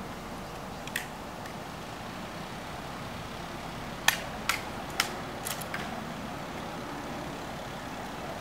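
Sharp clicks and slaps of an M14 rifle being handled in a drill-style rifle inspection: one click about a second in, then a quick cluster of five or six between about four and six seconds in. A steady low background rumble runs underneath.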